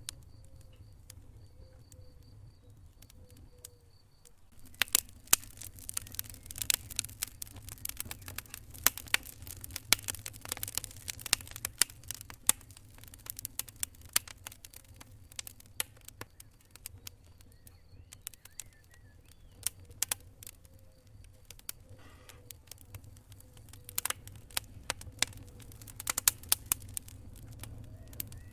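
Wood fire in a fireplace crackling, with irregular sharp pops and snaps that start about five seconds in and come thick and fast in two spells, over a steady low rumble.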